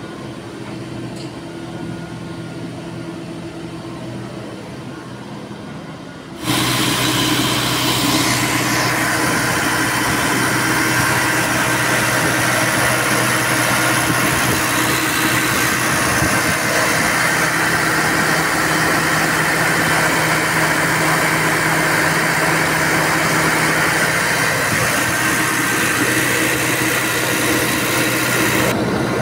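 Diesel engine of a Liebherr A 934 C wheeled material handler idling steadily. About six seconds in it becomes much louder and closer, heard right over the open engine compartment.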